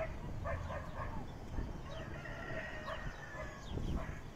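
Rooster crowing: a few short notes in the first second, then one longer held crow about two seconds in, over a low background rumble.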